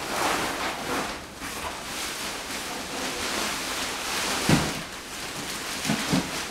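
Plastic packaging and packing sheet rustling and crinkling as a motorcycle fairing is unwrapped and lifted out of a cardboard box, with one thump about four and a half seconds in.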